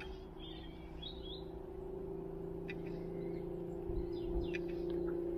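Small birds chirping and tweeting in short, scattered calls over a steady low hum that slowly grows louder.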